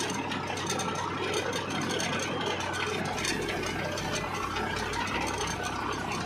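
Diesel farm tractor engine running steadily while the tractor is driven along a dirt track, heard from the driver's seat.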